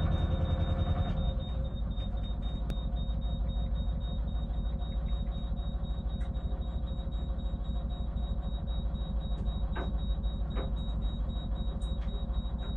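Narrowboat engine running with a fast, even chug under a steady high-pitched alarm tone from the engine's temperature warning, the sign that the engine is overheating. Music fades out about a second in.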